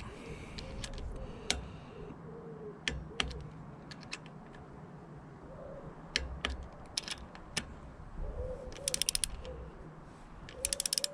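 Socket wrench tightening motorcycle cam bearing cap bolts to torque: scattered single clicks and taps of the tool, then two quick runs of rapid ratchet clicks near the end.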